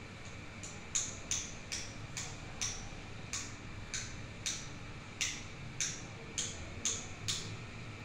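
A caged African grey parrot making a series of short, sharp clicks, about two or three a second and slightly uneven, starting about half a second in and stopping near the end.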